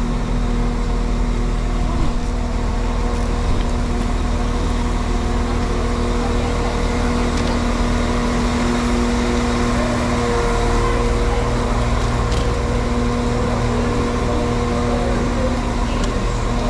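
Steady hum of a diesel train's engine idling at a station platform, several steady tones over a low rumble, with the general bustle of passengers getting off.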